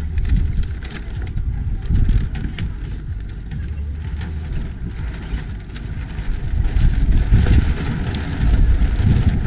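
Wind rumbling and buffeting on an action camera's microphone, an uneven low rumble with light crackling, louder from about seven seconds in.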